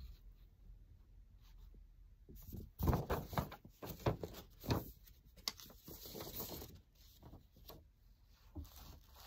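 Paper knitting pattern sheets being handled and shuffled: faint, scattered rustles with a few light clicks, mostly in the middle stretch.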